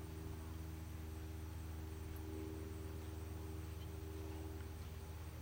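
Quiet, steady background hum with a few faint steady tones above it. No distinct hoofbeats or other events stand out.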